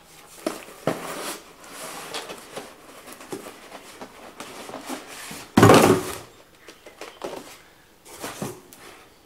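Cardboard shipping box and plastic air-pillow packing being handled: rustling, light knocks and scraping. A loud cardboard thump and scrape comes a little over halfway through as the box is moved.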